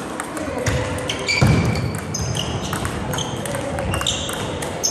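Table tennis rally: the plastic ball clicking sharply off rubber-covered paddles and bouncing on the table in quick succession, in a large echoing hall. A dull thump sounds about a second and a half in.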